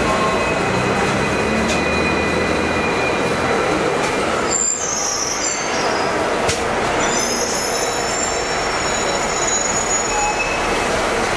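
Hong Kong double-decker tram running along street track, heard on board over steady running noise. Steel wheels squeal high on the rails for several seconds through the middle.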